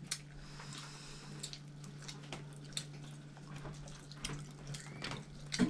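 Scattered small wet clicks and crackles of cooked prawn shells being peeled by hand, over a steady low hum.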